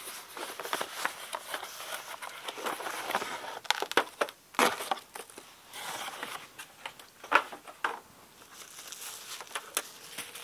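Cardboard box being unpacked by hand: cardboard flaps and inserts rustling and scraping, paper and packing crinkling, with a few sharp knocks about four and seven seconds in.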